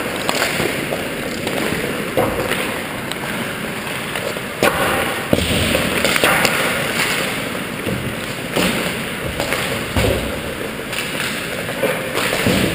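Ice hockey warm-up: skates scraping across the ice with sharp knocks of sticks and pucks against the ice and boards every couple of seconds.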